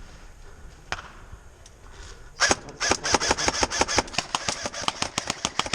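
Airsoft guns firing rapid automatic bursts, a fast train of sharp snapping shots that starts about two and a half seconds in, after a single click about a second in.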